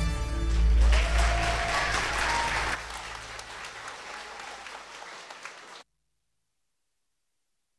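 Audience applauding, dying away after about three seconds, until the sound cuts off abruptly about six seconds in and leaves dead silence.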